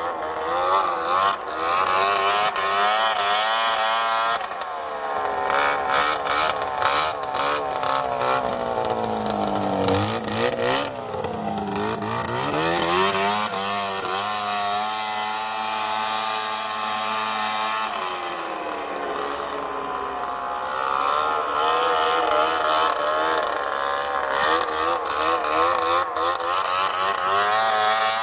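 Snowmobile engine running with its revs rising and falling: the pitch drops low about ten seconds in, climbs back and holds steady for a few seconds, then revs higher again, with a rough crackle throughout. The owner suspects an exhaust leak.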